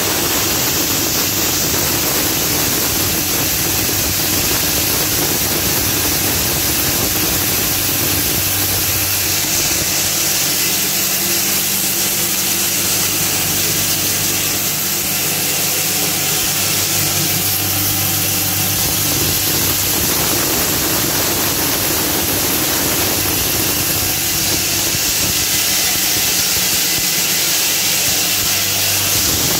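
Motor-driven maize crushing mill running steadily under load, grinding maize kernels into chicken feed meal: a loud, constant mechanical noise with a hiss over it.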